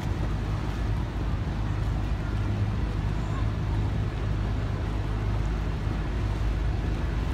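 A tour boat's engine running steadily with a low hum, under a constant wash of water and wind noise as the boat cruises.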